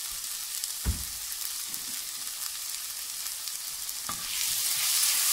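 Sliced bell peppers, onion and celery sizzling in oil in a pan, with a dull knock about a second in. Near the end a silicone spatula starts stirring the vegetables and the sizzling grows louder.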